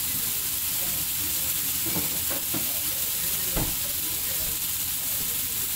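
Sliced mushrooms sizzling steadily in a hot frying pan. A few short knocks come between about two and three and a half seconds in, the last the loudest.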